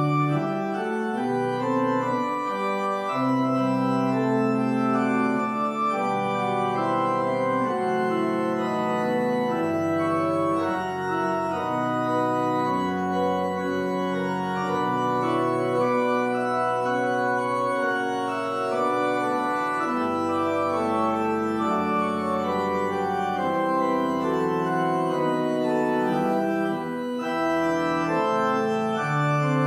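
Church organ playing the postlude: full held chords changing every second or so over a moving bass line, with deeper pedal notes in the second half.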